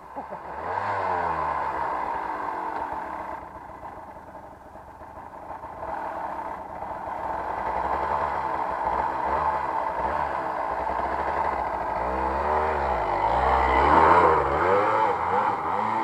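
Off-road trail motorcycle engine running, its revs rising and falling again and again; it dips a few seconds in and is loudest near the end.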